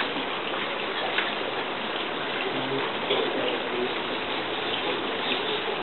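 Steady hiss of rain, with a few faint ticks.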